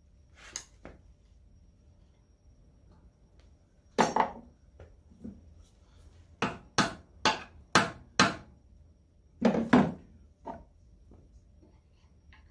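Sharp metal knocks from hand tools working on the cast-iron crankcase and crankshaft of an International Harvester Type M engine being taken apart. There is one loud knock, then a run of five strikes about half a second apart, then a couple more near the end.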